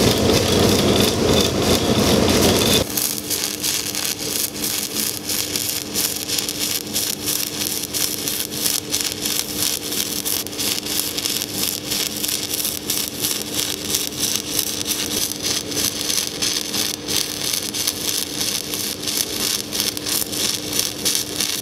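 Stick-welding arc from a 1/8-inch 7018 rod on an HTP Invertig 221 inverter in pulse mode (160 amps peak, DCEP, pulsing at 3 Hz), crackling steadily over a steady hum. About three seconds in it drops in level.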